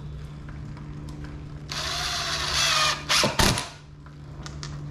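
Cordless impact driver driving a screw through a steel piano hinge into the board: one run of about a second and a quarter with a wavering pitch, then two short bursts a moment later.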